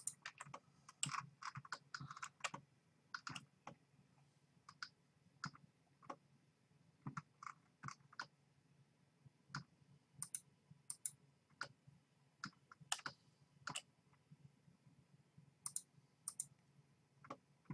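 Faint, irregular clicks of a computer mouse and keyboard, bunched in the first few seconds and sparser after, over a faint low hum.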